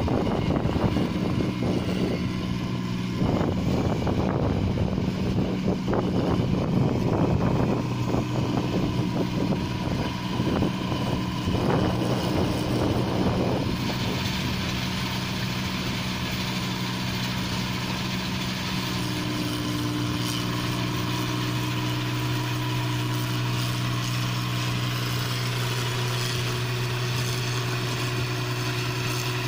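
New Holland combine harvester running steadily while harvesting rice, a constant engine hum. A rough crackling noise rides over the hum for the first half and stops about halfway through.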